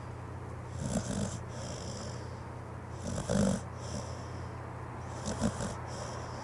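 Pit bull snoring while asleep: three snores about two seconds apart.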